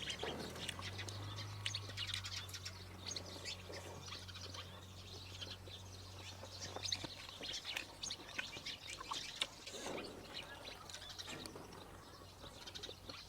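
Birds chirping in the background, many short high calls scattered throughout, over a low steady hum that cuts off about seven seconds in.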